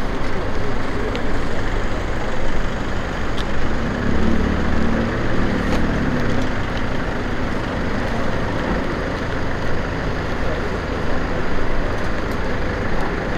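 A steady low mechanical drone of engines or machinery running, with a few faint ticks.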